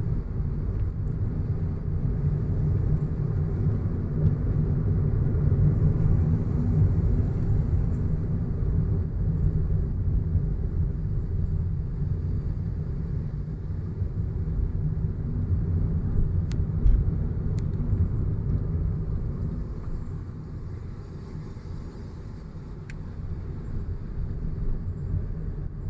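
Steady low rumble of a car driving: road and engine noise, easing off somewhat about twenty seconds in.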